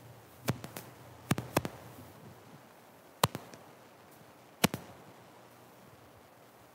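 About six sharp knocks and taps at irregular intervals, the loudest about three and four and a half seconds in: a person walking up with a small wooden cross and handling it at a lectern, over a faint room hum.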